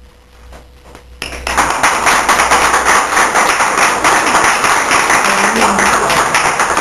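Audience applauding. The applause breaks out suddenly about a second in and keeps up at an even level.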